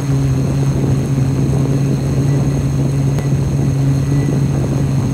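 FPV quadcopter's motors and propellers running steadily close to the microphone: an even low buzz over a rush of prop wash.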